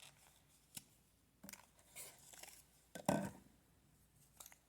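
Light, scattered clicks and brief rustles of a polygel brush-and-spatula tool being taken out of its packaging, the loudest rustle about three seconds in.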